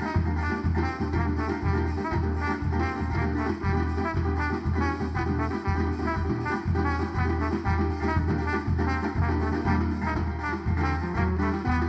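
Band playing an instrumental passage in bumba-meu-boi zabumba style: a brass melody over a steady, even deep drum beat.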